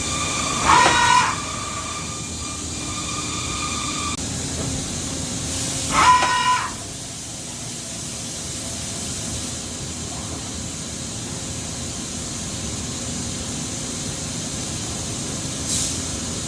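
2003 Okuma MA-40HA horizontal machining center running with a steady hiss, broken twice, about a second in and about six seconds in, by a short, loud whine that rises in pitch.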